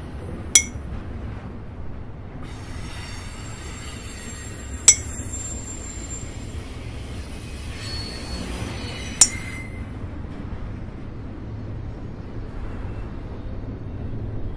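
Freight train rolling by: a steady low rumble, with three sharp metallic clinks that ring briefly, about four seconds apart, and a faint high metallic squeal in the middle stretch.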